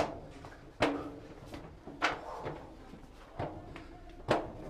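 Footsteps knocking on the slatted wooden ramp of a steep, narrow stone passage as a person climbs: five sharp footfalls about a second apart, the fourth softer.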